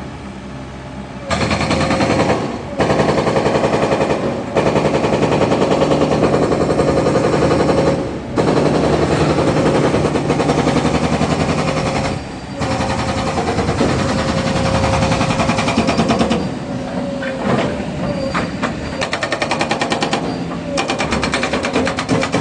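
Hydraulic breaker on a Caterpillar 307 excavator hammering in long bouts of rapid, evenly repeated blows, starting about a second in and pausing briefly every few seconds, with shorter, choppier bursts near the end; the excavator's engine runs underneath.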